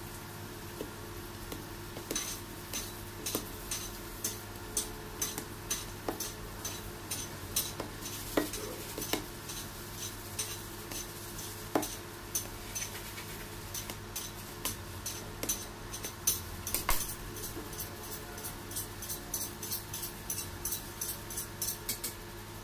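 A long knife sawing back and forth through sponge cake layers, a short scrape with each stroke about two to three times a second, with a few louder knocks along the way.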